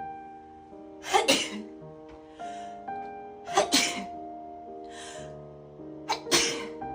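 A person sneezing three times in a row, about two and a half seconds apart, with softer breathy sounds in between: a hay-fever allergy sneezing fit.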